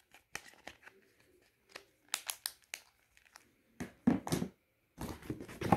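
Hands handling a small plastic cell phone: scattered light clicks and taps, a louder clatter about four seconds in as it is set down, then a stretch of crinkling near the end.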